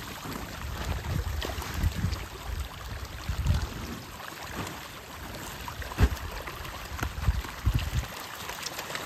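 Water churning and splashing as a tightly packed school of large fish thrashes at the surface in a feeding frenzy, with repeated sudden splashes, the sharpest about six seconds in.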